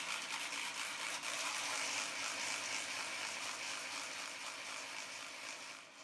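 Homemade bee hummer, a rubber band stretched along a popsicle stick under a folded index card, whirled round on a string. It makes a steady buzzing whoosh as the rubber band vibrates against the card, and dies away near the end.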